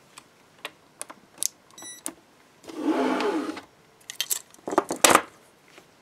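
Aluminium handcuffs being handled: scattered light metal clicks and a jangle of their short chain, with the loudest clacks about five seconds in as they are set down. A short electronic beep sounds about two seconds in.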